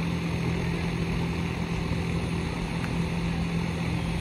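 A steady low engine drone with a constant hum and rumble that holds even throughout, with no speech over it.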